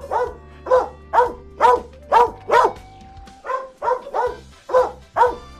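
Dog barking: a quick run of short barks, about two a second, with a brief pause about three seconds in before the barking resumes. Soft background music with steady low tones runs underneath.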